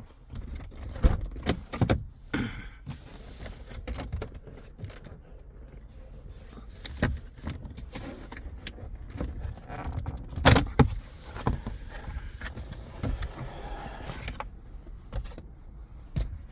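Plastic dashboard trim of a 2019 Toyota Corolla being pulled loose by hand around the head unit: a run of clicks, knocks and rattles, with one loud knock about ten seconds in.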